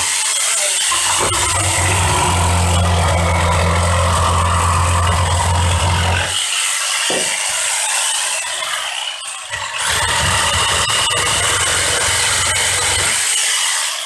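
Corded DeWalt jigsaw running and cutting through wood pallet boards with a steady motor whine. About eight seconds in the motor winds down and stops. It starts again around ten seconds and winds down near the end.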